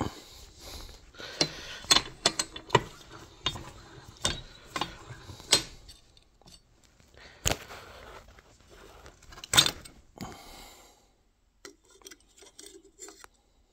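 Thin sheet metal being worked by hand between magnetic V-shaped brake dies in a bench vise: a run of sharp metallic clicks and clinks as the strip is pressed over the die edge, with two louder knocks a couple of seconds apart. The clicks grow fewer and fainter near the end.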